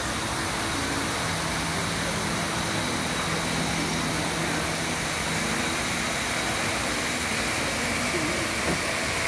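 Steady rushing hiss of a large fountain's water spray falling onto a lake, with a faint low hum under it through the first half.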